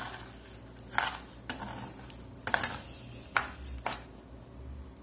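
Metal spoon stirring and scraping raw rice frying in a saucepan, in several irregular strokes with a faint sizzle. The rice was left frying too long and has toasted too dark.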